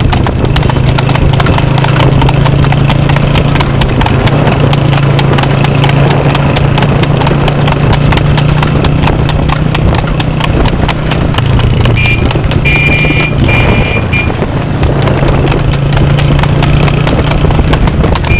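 A harnessed cart horse's hooves clip-clopping fast and evenly on an asphalt road as it trots, over a steady low hum. A brief high tone sounds a few times about twelve seconds in.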